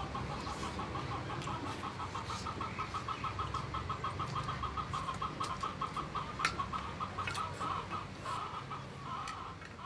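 A bird calling in a rapid, even string of short notes on one pitch, about six or seven a second, with a few sharp clicks over it.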